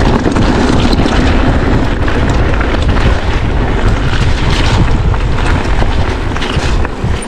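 Wind buffeting an action camera's microphone over the rattle and rumble of mountain bike tyres on a rough dirt trail at speed. It drops away abruptly near the end.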